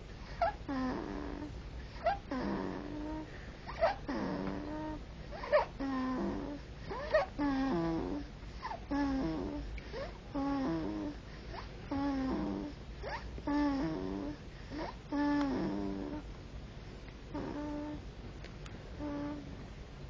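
Snoring: a pitched, rasping sound on each breath, repeating about once a second.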